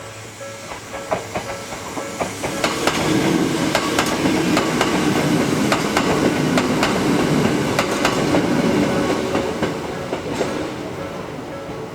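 A Hakone Tozan Railway electric train passing, its wheels clicking over the rail joints. It grows to its loudest in the middle and fades toward the end.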